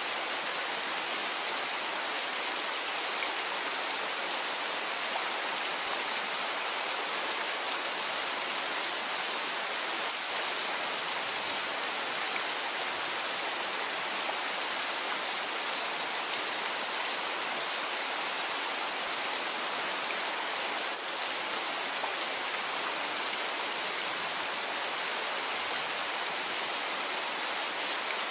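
Rain falling steadily: an even, unbroken hiss with no single drops standing out and no thunder.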